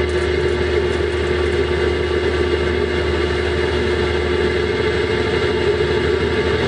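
Automatic car wash machinery running steadily, heard from inside the car as water sprays over the windshield: an even hiss of spray over a steady mid-pitched hum.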